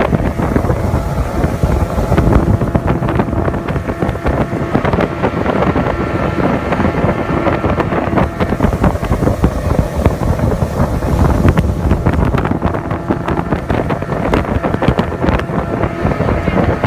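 Speedboat underway at speed: its engine running with a steady drone and faint whine, the hull rushing over the water, and wind buffeting the microphone.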